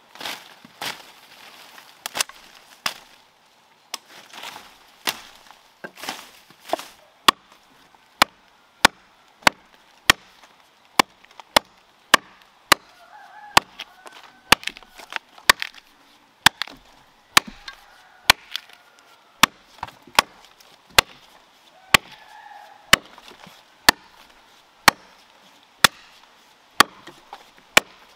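A blade chopping into the green trunk of a standing tree, cutting a notch. The first few seconds bring softer, irregular strikes, then sharp, regular chops about two a second from around seven seconds in.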